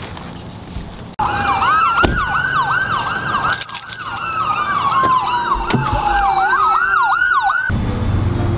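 Emergency-vehicle siren: a fast rising-and-falling yelp, about three sweeps a second, layered with a slower falling wail. It starts suddenly about a second in and cuts off abruptly near the end.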